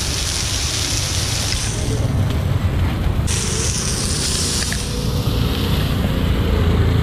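Fish and prawns sizzling on a large iron griddle, with a steady low rumble underneath. The sizzle drops away for a second or so near the middle and fades again toward the end.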